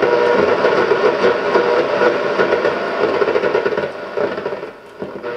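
Shortwave static and interference from the speaker of a 1977 JVC RC-443JW radio cassette recorder as its dial is tuned across the shortwave band, a rough steady noise that drops away about four seconds in.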